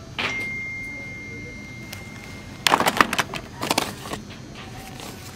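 Cardboard makeup palette boxes clicking and knocking as they are handled and shuffled on a store shelf, in two quick clusters. Before that comes a single high ding-like tone that fades away over about two seconds.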